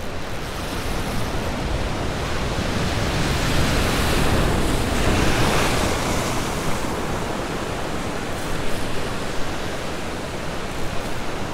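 Ocean surf breaking on a rock ledge: steady wash of waves, with one wave crashing on the rocks and swelling loudest about halfway through before easing back.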